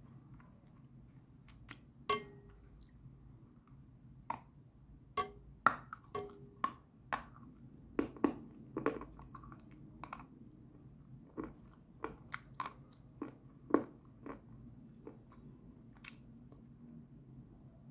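Close-up chewing and crunching of a bitten-off mouthful of grey-green edible clay: irregular sharp crunches, busiest from about two to fourteen seconds in, then softer chewing.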